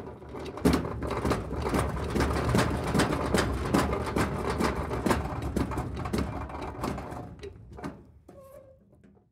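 Metal tool chest pushed along on its casters: a steady rolling rumble full of rattles and knocks from the metal drawers and frame, easing off and stopping about eight seconds in with a faint brief metallic ring.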